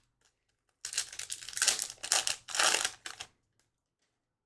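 A hockey card pack wrapper crinkling and tearing as it is opened. The rustling starts about a second in and lasts about two and a half seconds, in two louder swells.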